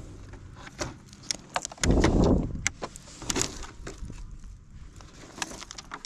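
Small RC crawler truck on RC4WD Attitude M/T tires clattering over rocky ground: a run of irregular sharp clicks and knocks from the tires and chassis hitting rock, with a louder low rumble about two seconds in.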